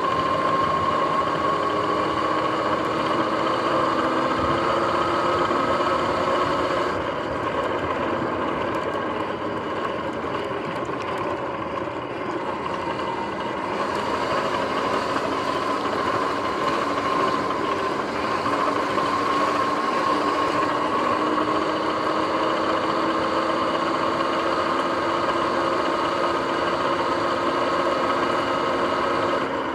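Sur-Ron X electric dirt bike under way at a steady cruise. A steady whine from its motor and drivetrain drifts slowly up and down in pitch with road speed, over a rushing hiss of tyre and wind noise. The sound eases and dulls for several seconds about a quarter of the way in, then comes back up.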